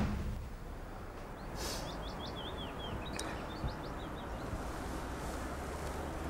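Outdoor background hiss with a short run of high bird chirps about two seconds in.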